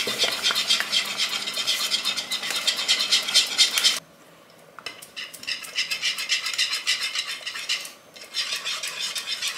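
Wire whisk beating a milk-and-flour cream in a saucepan: a fast run of scraping clicks against the pan. It stops for about a second around four seconds in, then starts again, with a short break near the end.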